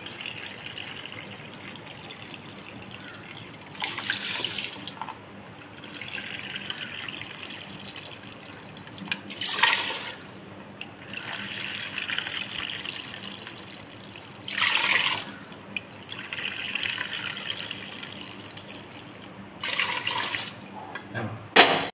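Water poured from a plastic jug into a plastic measuring cup, cup after cup, each cupful tipped into a rice cooker pot of rice and spices. A steady pouring stream with a faint high tone that rises and falls is broken four times, about every five seconds, by a short, louder splash.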